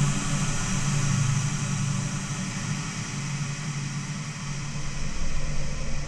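Made-up dark ambient drone: a steady hiss with a low hum and faint ringing tones, like wind and grinding machinery. The hum fades in the middle and a deeper rumble swells near the end.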